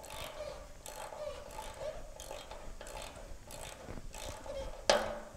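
Hand socket ratchet clicking in short, uneven strokes as a bolt is run in on the chassis, with one sharper clack near the end.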